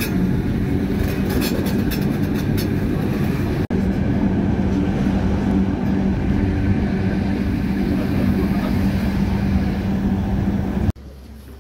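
Electric rack-railway train of the Gornergrat line running uphill: a steady rumble with a low motor hum, and a few clicks in the first few seconds. About eleven seconds in it cuts to a much quieter background.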